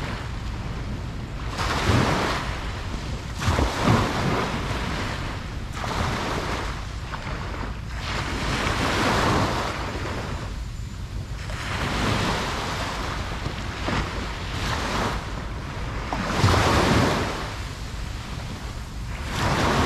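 Ocean waves breaking and washing on a beach in repeated surges every few seconds, with a steady low rumble of wind on the microphone.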